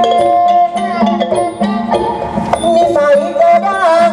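Thai traditional ensemble music accompanying a likay performance: melodic instruments playing over a steady, regular beat of drums and high metallic ticks.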